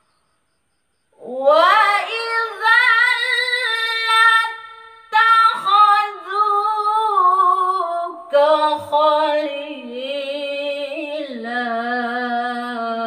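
A woman reciting the Qur'an in melodic tilawah style (qiroah), starting about a second in: long held notes with ornamented turns, in several phrases broken by short breaths, the pitch settling lower in the last phrase.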